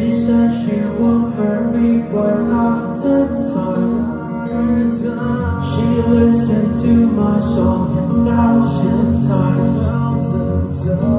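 Live pop music in a concert arena: a singer sings into a microphone over amplified band accompaniment, heard through the hall's loudspeakers from the audience seats.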